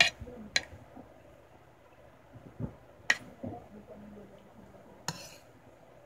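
Metal spoon clinking against a plate while scooping rice and tuna: sharp clinks right at the start, half a second later and about three seconds in, then a short scrape about five seconds in.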